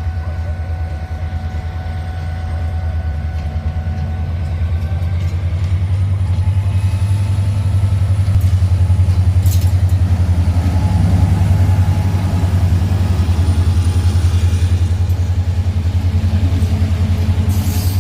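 CFR train locomotive running at a standstill or moving slowly, a steady low rumble with a fast even pulse that grows louder over the first several seconds.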